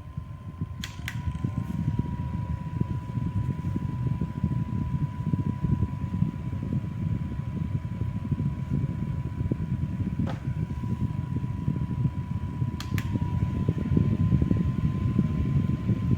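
Electric fan running: a steady rush of air with a thin steady whine, broken by a few sharp clicks, a double one about a second in, a single one near ten seconds and another double one near thirteen seconds.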